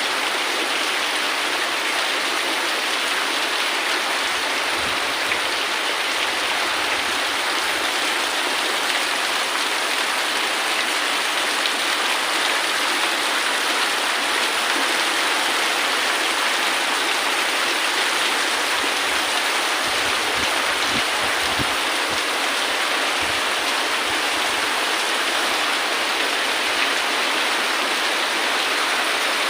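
Rain falling steadily and heavily, an even unbroken hiss of drops.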